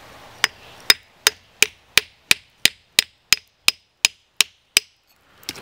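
Hammer striking a steel chisel held on a garnet-bearing rock to split it: about thirteen quick, even blows, roughly three a second, each a sharp tap with a faint metallic ring.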